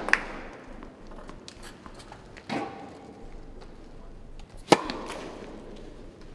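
Tennis balls struck by rackets: three sharp hits spread out, the loudest near the end, each with a short echo.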